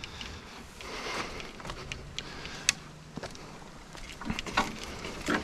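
Footsteps and rustling through dry grass, dead twigs and brush, with scattered crackles and snaps, one sharp click about two and a half seconds in, and busier rustling near the end.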